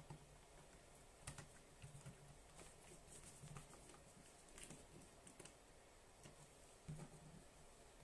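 Faint, irregular small clicks and taps of handling the plastic housing and small parts of a Sony Walkman WM-50 cassette player during reassembly.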